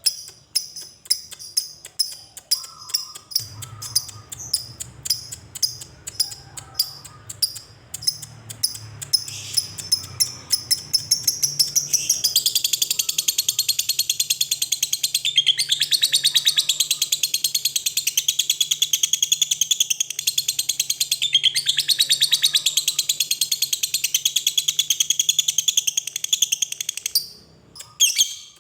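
Lovebird calling: sharp separate chips at first, quickening, then breaking about twelve seconds in into a long, unbroken rapid chatter ("ngekek panjang") that stops near the end.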